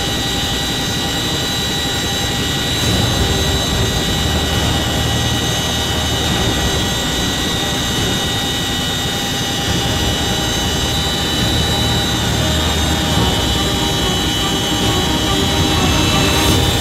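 Loud, steady cabin noise of a CH-47 Chinook helicopter in flight, heard from inside at the open rear ramp: a constant high whine over a heavy low rumble.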